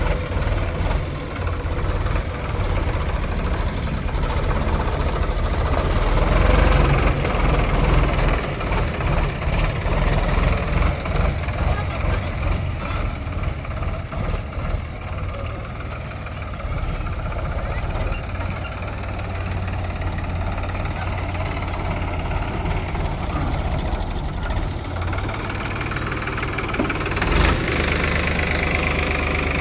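Diesel engine of a backhoe loader working, running steadily and rising in loudness for a while partway through.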